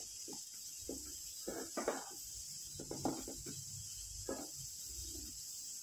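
A spatula stirring and scraping a chunky vegetable and boiled-potato filling around a nonstick frying pan. About eight soft, irregular scrapes and knocks sound over a steady faint hiss.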